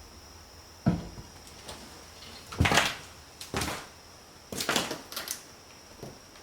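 A series of irregular knocks and scraping scuffs, about six in all: a low thud about a second in, then longer scrapes and knocks through the rest. A faint steady high whine runs underneath.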